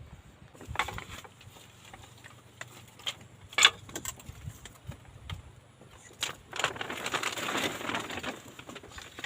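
Scattered clicks and knocks, one sharper than the rest about three and a half seconds in, then about two seconds of dense rustling and crackling starting around six and a half seconds in.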